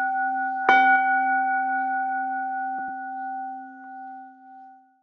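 A Buddhist bowl bell is struck about a second in, over the ringing of an earlier strike. It then rings on in several steady tones that slowly fade away near the end.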